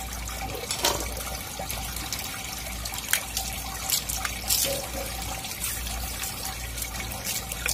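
Water running from a garden hose over a wooden cutting board and wet pavement, with a few short knocks and scrapes as the board is scrubbed and handled.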